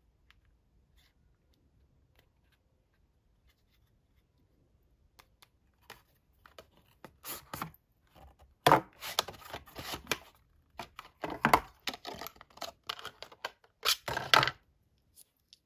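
A cardboard box is slid open and its packaging handled: irregular papery scraping and rustling that starts about six seconds in and comes in louder bursts through the second half, after a few faint ticks.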